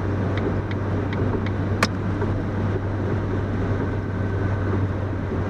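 2005 Ford Focus 2.0 Duratec running, heard from inside the cabin: a steady low drone over road rumble. A few light ticks and one sharp click come in the first two seconds.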